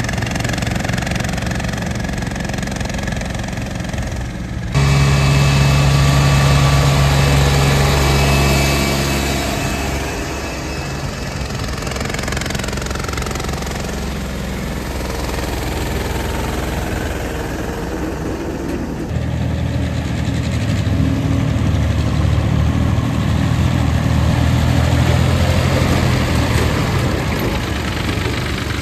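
Small diesel tractor engines running steadily while towing trolleys. The engine note jumps louder and deeper about five seconds in, eases off around ten seconds, and grows louder again from about nineteen seconds.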